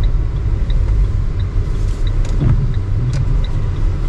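Engine running with a steady low rumble, with a faint regular ticking about three times a second.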